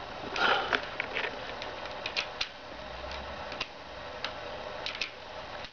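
Irregular light clicks and knocks from a bicycle's parts being handled during front-wheel and fork removal, with a brief scuffing rustle about half a second in.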